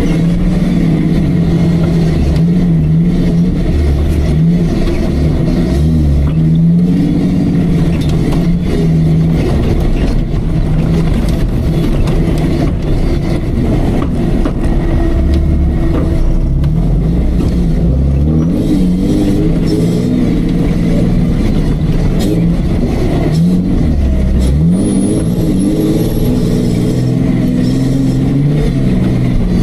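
Off-road Jeep's engine running hard through a competition course, the revs rising and falling again and again.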